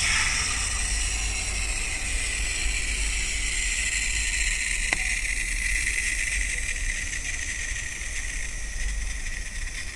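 Aerosol AC vent cleaner spraying foam through its extension tube into a car's dashboard air vent: a steady hiss that cuts off abruptly at the end, over a low steady hum.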